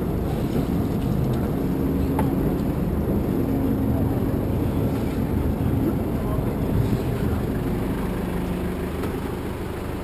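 Steady rumble and rush of water churning up into the Gatun Lock chamber as it fills, with a steady low hum underneath.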